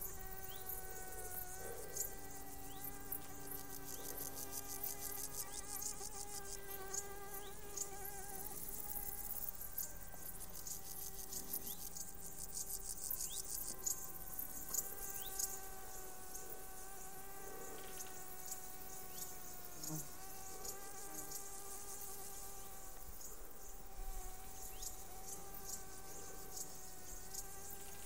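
Insects buzzing: a steady, slightly wavering hum, with fast high-pitched chirping of insects over it.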